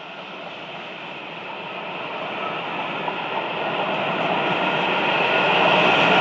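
Steam-hauled passenger carriages rolling past on the rails: a steady rushing rumble of wheels and bodies that grows steadily louder.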